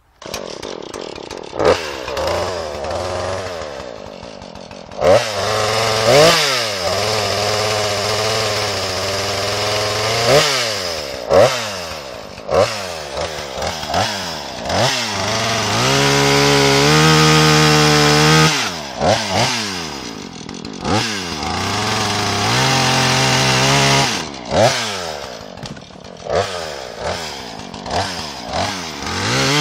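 Two-stroke chainsaw running and being throttled repeatedly, its engine revving up and dropping back over and over, sometimes held at high revs for a couple of seconds.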